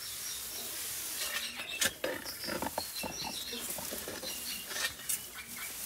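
Steel spade scraping and chopping into root-bound soil while digging out a bamboo clump: a run of small irregular scrapes and clicks, with a sharper knock about two seconds in.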